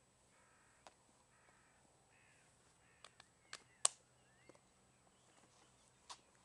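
A bird calling over and over in short calls, about one a second, for the first two and a half seconds. Then a scatter of sharp clicks follows, the loudest just before four seconds in, with one more near the end.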